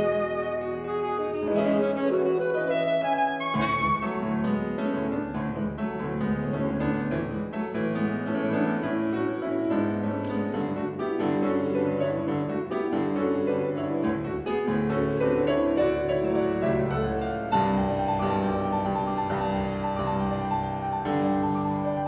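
Alto saxophone and grand piano playing a contemporary classical saxophone concerto, with many quick, changing notes.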